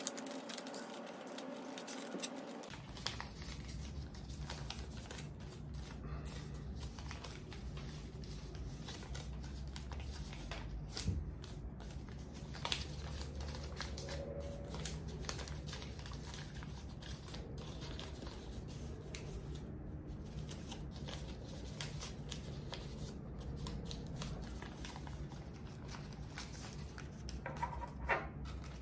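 A sheet of paper being folded and creased by hand into an origami crane: soft irregular rustles and crinkles with the odd sharper crease click. A low steady hum sets in about three seconds in.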